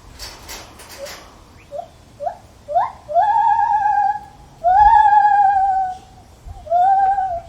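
Lar gibbon calling: three short rising whoops that come quicker and climb higher, then three long, wavering hoots, the middle one the loudest. A brief rustle and a few clicks come just before the calls.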